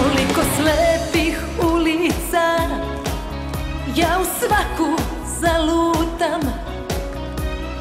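A woman singing a Serbian pop-folk song into a microphone over a full band backing, her voice wavering with ornaments and vibrato.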